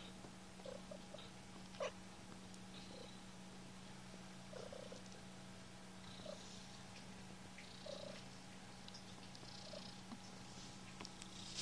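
Mother cat purring steadily and softly beside her newborn kittens, with a sharp tap about two seconds in.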